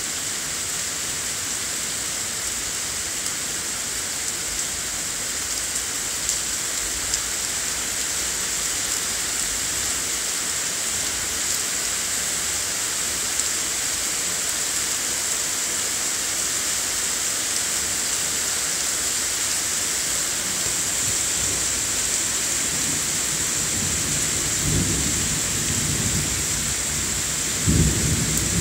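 Heavy thunderstorm: rain falling in a steady hiss, with low thunder rumbling in over the last few seconds and loudest at the very end.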